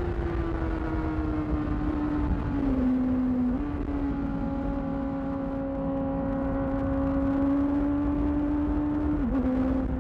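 2008 Yamaha R6's inline-four engine, breathing through a Termignoni aftermarket exhaust, running at steady high revs on the move. Its pitch sags slowly at first and then holds, with brief dips in pitch about two and a half seconds in and again near the end, over a low rumble.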